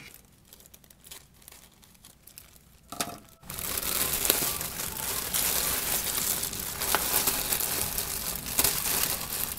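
Thin clear plastic bag crinkling loudly as it is pulled open and off a plush toy. It starts about three and a half seconds in, after faint rustling.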